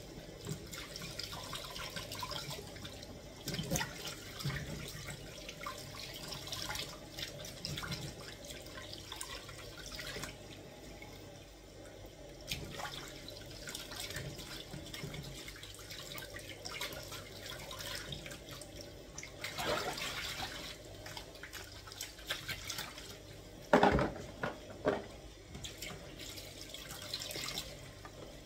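Kitchen tap running into a stainless steel sink while coconut pieces are rinsed by hand in a plastic tub, with irregular splashing and small knocks. A sharper knock comes near the end.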